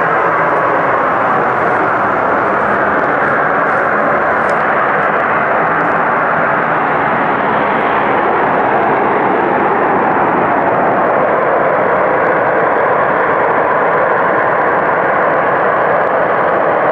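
Loud, unbroken mechanical-sounding drone of unknown source, with layered tones slowly sweeping up and down through it. It is so loud that it rings the listener's ears.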